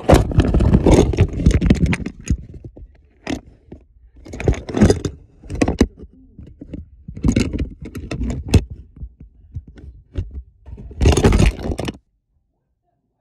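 Handling noise from a phone being carried and jostled: several rushes of scraping and rubbing with knocks against the microphone.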